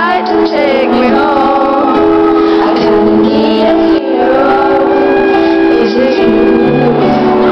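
Live pop ballad performance: a woman singing over held accompaniment chords.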